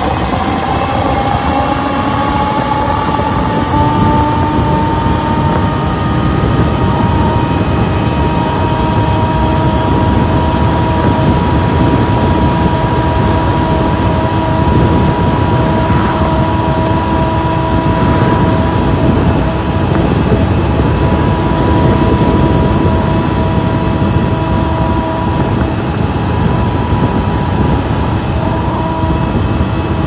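Electric motor of a Razor MX650 electric dirt bike, upgraded to 72 volts and 3000 watts, whining at near top speed. Its pitch rises over the first few seconds as the bike accelerates, then holds steady over heavy wind rush on the microphone.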